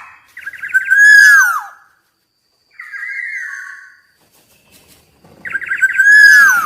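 Black-naped oriole singing: two loud phrases, each a quick run of short notes ending in a clear whistle that slides downward, with a quieter whistled phrase between them.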